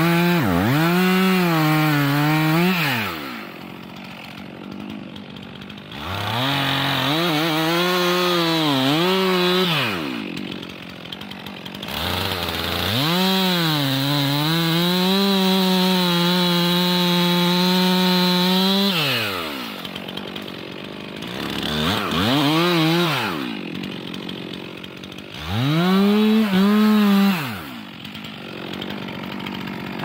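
Stihl MS 362 C two-stroke chainsaw making felling cuts at the base of a spruce. It runs in five bursts at full throttle, the longest about six seconds. In each the pitch sags under load in the cut and climbs again, and the engine drops back to idle between bursts.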